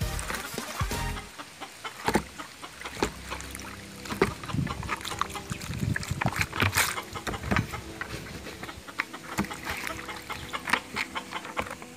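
Chickens clucking, with scattered short clicks and scuffs throughout.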